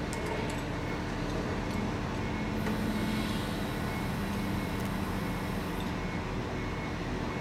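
Heavy diesel machinery running steadily during a crane lift. A humming tone comes in about a second and a half in, and a hiss joins for about three seconds in the middle.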